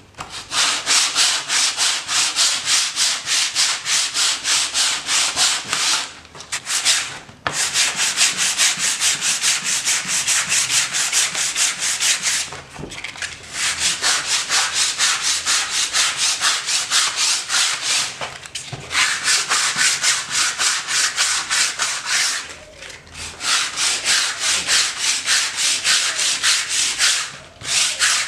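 100-grit sandpaper rubbed by hand over hard, cured polyester filler on fiberglass: quick back-and-forth scratchy strokes, about three a second, in runs of several seconds with short pauses between them.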